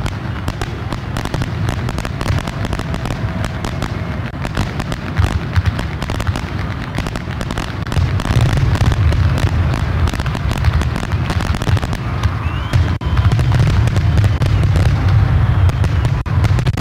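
Fireworks display: a dense, continuous run of bangs and crackles from bursting shells over a deep rumble, growing louder about eight seconds in.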